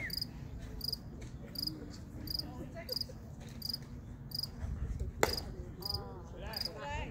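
Crickets chirping steadily and evenly, about three chirps every two seconds. About five seconds in comes a single sharp smack, a pitched ball popping into the catcher's mitt.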